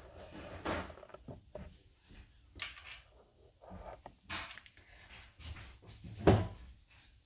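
Scattered knocks and handling noises, the loudest a heavy thump about six seconds in, like a cupboard or appliance door being shut.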